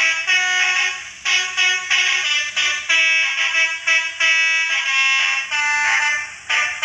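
Basuri multi-tone vehicle horn playing a fast 'telolet' tune. Short horn notes follow one another, several pitches sounding together, with brief breaks between phrases.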